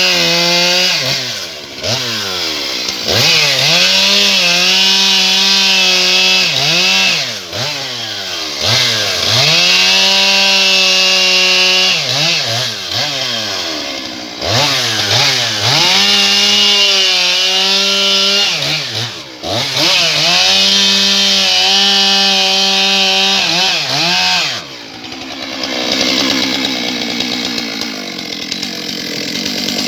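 Stihl MS 661 C-M two-stroke chainsaw cutting small logs: the engine holds a steady high pitch through each cut. Between cuts its revs fall and climb back, about five times. Near the end it drops to a lower, rougher running.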